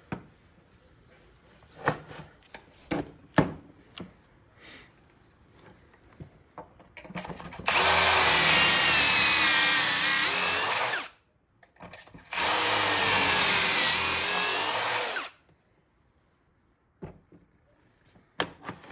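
A few clicks and knocks of handling, then a power drill boring two pocket holes with a Kreg stepped pocket-hole bit through 1x board in the jig: two runs of about three seconds each with a brief pause between, the pitch sagging slightly as the bit cuts. The bit is very sharp and cuts almost effortlessly.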